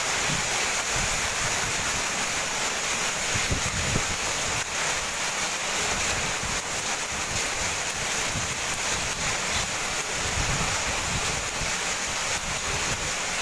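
Heavy hailstorm: hail and rain pouring down in a steady, dense roar.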